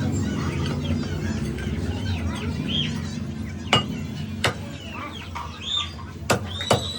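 Live chickens clucking, over a steady low hum. Several sharp knocks come in the second half.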